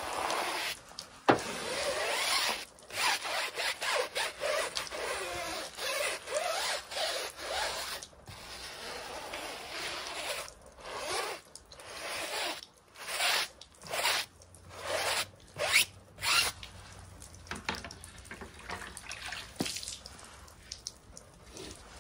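Stiff hand brush scrubbing a soapy rubber tyre, repeated scrubbing strokes about two a second that thin out and grow fainter over the last few seconds.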